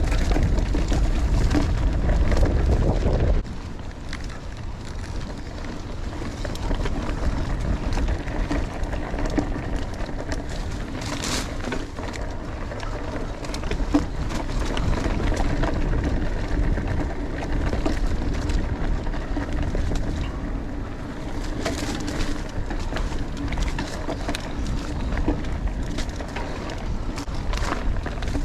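A 2018 Giant Stance 2 full-suspension mountain bike ridden along a dirt trail: steady tyre noise with clicks and rattles from the bike, and wind rumble on the microphone. The rumble is heaviest for the first three seconds, then drops suddenly.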